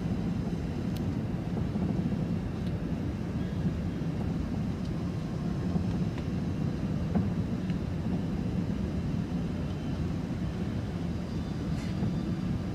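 Steady low rumble of an Airbus A380-800's Rolls-Royce Trent 900 engines and the airflow, heard inside the passenger cabin from a window seat over the wing on final approach with the flaps extended.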